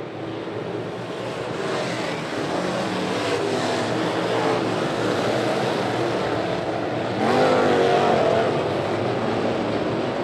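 A pack of Sportsman dirt late model race cars running at full throttle on a dirt oval, their engines blending into a steady racing drone. About seven seconds in it gets louder and an engine note wavers up and down.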